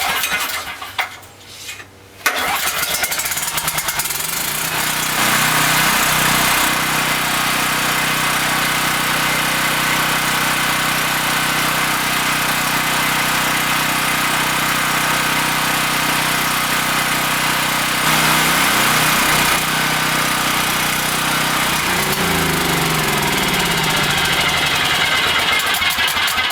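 Homelite 5700-watt portable generator pull-started cold on gasoline with the choke on. It catches about two seconds in and then runs steadily, its engine speed sagging and recovering briefly twice in the second half.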